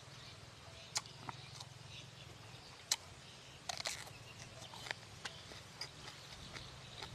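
Close-up eating sounds of someone chewing crispy roast duck skin: irregular sharp crunches and clicks, a quick cluster of them a little before the middle, over a low steady hum.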